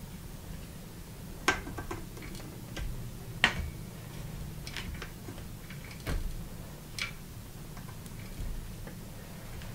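Irregular light clicks and taps of a bicycle V-brake arm and brake pad being handled and positioned by hand, over a steady low hum.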